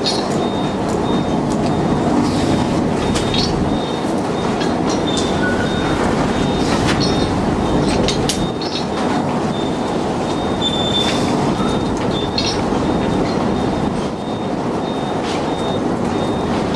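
Heavy machinery running aboard a beam trawler: a loud, steady rumble with scattered metallic clanks and knocks and an on-and-off high squeal.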